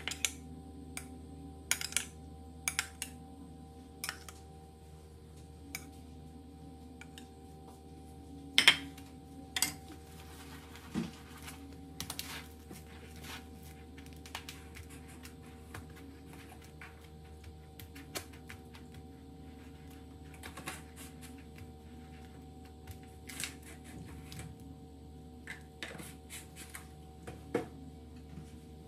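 A metal spoon clinks and taps against a ceramic bowl as a ball is coated in beaten egg, and the ball is then rolled in dry crumbs in a plastic tub, giving scattered sharp clicks and some rustling over a steady low hum.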